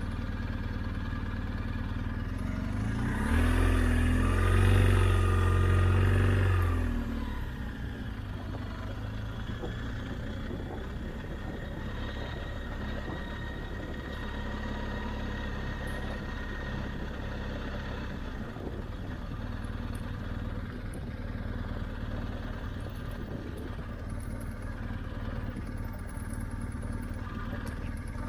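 BMW R 1250 GS Adventure motorcycle's boxer-twin engine running steadily. It swells louder for a few seconds starting about three seconds in, then settles back.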